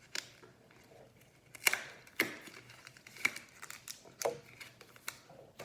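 Foil Pokémon booster pack wrapper crinkling as it is handled and torn open, in a handful of sharp, irregular crackles.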